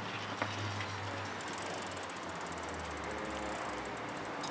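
Bicycle freewheel hub clicking rapidly as the bike coasts close by, starting about a second and a half in and stopping near the end, over a low steady hum.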